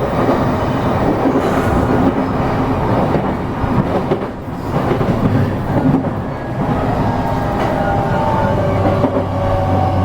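Interior running noise of an E233 series electric train slowing into its station stop: wheels rumbling and clattering over the rails. From about seven seconds in, steady electric humming tones from the traction equipment come up over the rolling noise.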